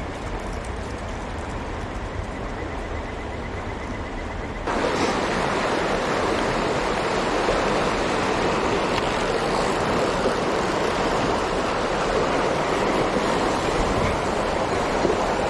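Mountain stream water rushing steadily, jumping suddenly louder about five seconds in.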